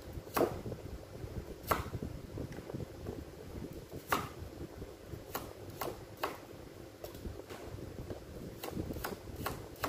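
Cleaver chopping carrot and other root vegetables on a thick round wooden chopping block: about ten sharp knocks at irregular intervals, some in quick clusters, over a steady low background hum.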